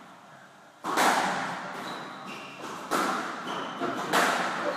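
Squash ball being struck and smacking off the court walls during a rally: three sharp, echoing hits, about a second in, near three seconds and just after four seconds, the first the loudest. Brief squeaks of shoes on the wooden floor come between the hits.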